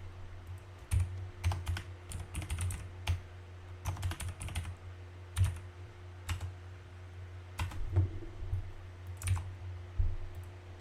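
Irregular clicks and taps on a computer keyboard and mouse, some in quick runs, over a steady low electrical hum.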